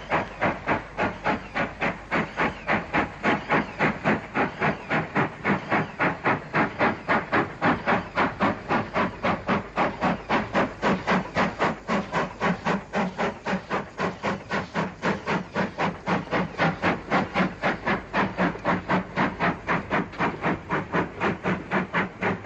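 Steam locomotive exhaust beating steadily and evenly at about four chuffs a second, a freight engine working a goods train.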